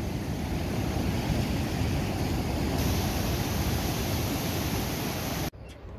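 Steady noise of strong wind and breaking sea waves after a gale, with a heavy low rumble of wind on the microphone. It cuts off suddenly near the end.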